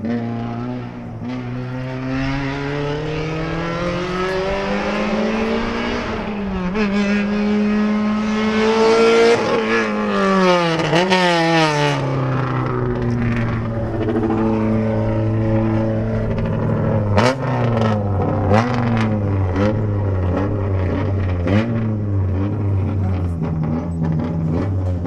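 Honda Civic EG6 Group A touring car's 1.6-litre four-cylinder racing engine. The engine note climbs and falls through gear changes as the car comes closer, with quick up-and-down revs around the middle. It then settles to low revs, broken by several short sharp throttle blips as the car rolls to a stop.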